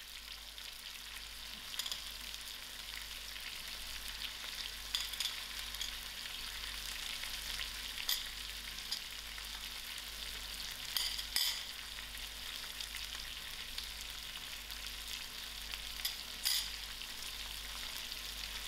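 Chicken pieces frying in hot oil in a stainless steel pan, a steady sizzle, with a few short clinks of metal spoons as spice powders are added.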